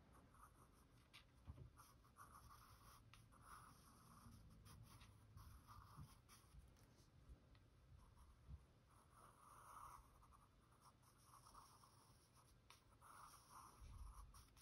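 Graphite pencil sketching on sketchbook paper: faint, irregular short scratching strokes with small ticks as the lead touches down.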